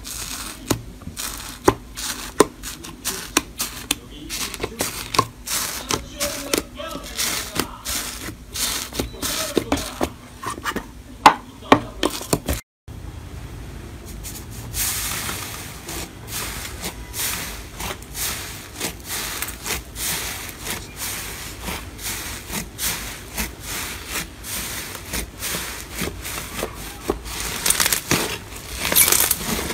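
Slime pressed and squished by fingers, with dense crackling and popping clicks. About halfway it cuts out for a moment, then a second slime topped with flakes is pressed and kneaded by hand, with a hissier squishing and crackling.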